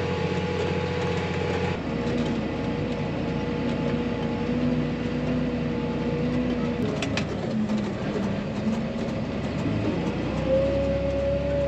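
Tractor running steadily under load while pulling a planter, heard from inside the cab: a constant hum with a steady whine, its pitch shifting slightly a few times.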